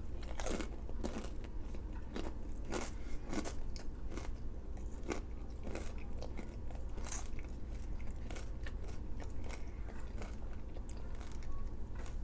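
A person chewing Chinese takeout food close to the microphone, with many small, irregular crunches and bites.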